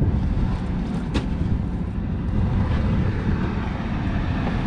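Motorised fishing boat's engine running with a steady low rumble, and a single sharp knock about a second in.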